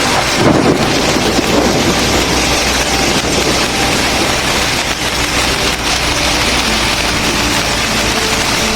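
Heavy hailstorm: hail and rain pelting down hard in a dense, unbroken clatter, with a heavier low surge in the first second.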